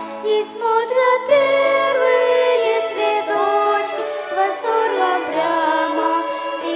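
A small vocal ensemble, female voices among them, singing a Christian song in several-part harmony with violin accompaniment.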